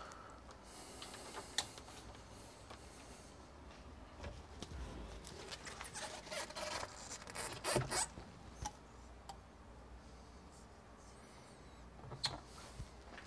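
Quiet handling noises from things being moved about on a counter: rustling with a few sharp clicks and knocks, loudest about eight seconds in. No motor is running.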